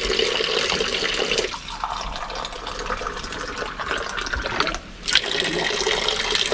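Water running steadily from the outlet of a newly installed carbon water filter, flushed to wash out the carbon fines before drinking. The flow changes about a second and a half in and drops out briefly about five seconds in before running on.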